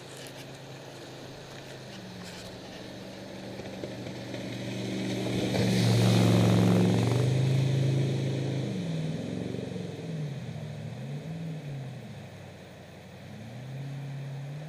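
Jet boat engine running as the boat approaches and passes close by, loudest about six seconds in, where a rush of water spray joins the engine. After the pass the engine pitch swings up and down a few times, then settles into a steady drone near the end.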